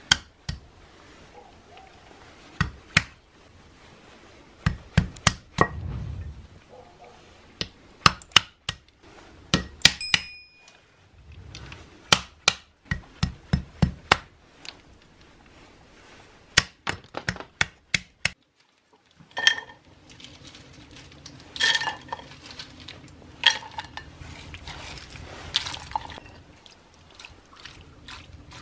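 Walnuts and hazelnuts being cracked open on a wooden stump, a run of sharp knocks coming in quick clusters. About two-thirds of the way in, this gives way to lighter, ringing clinks as shelled nuts are dropped into a clay bowl.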